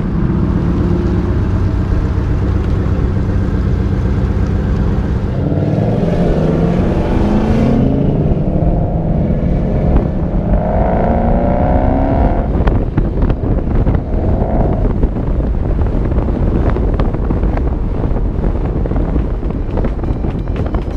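Ford Mustang engine driving at highway speed, its note climbing as it accelerates about five seconds in and again around ten seconds in, over a heavy rumble of wind and road noise buffeting an exterior-mounted camera.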